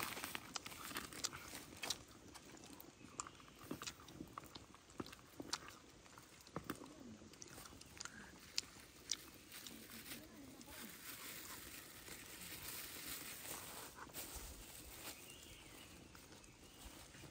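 Faint scattered clicks and crackles with rustling, from cooking over a small wood fire: the fire crackling under the pot while a wooden spoon stirs in the metal pot.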